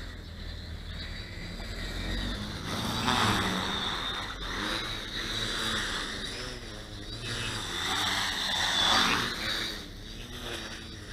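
Radio-controlled tricopter's electric motors and propellers buzzing in flight. The pitch glides up and down with the throttle, and it grows louder twice, about three seconds in and again near nine seconds.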